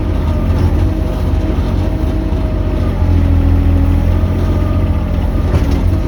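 Mini excavator's diesel engine running steadily while working, growing a little louder for about a second around three seconds in.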